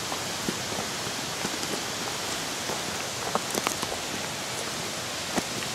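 Steady rushing of water, with scattered light clicks and taps throughout.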